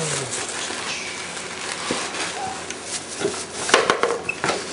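Thin plastic shopping bag crinkling and rustling as it is pulled back from a boxed tube tester, with a few sharp clicks and knocks about three and a half seconds in.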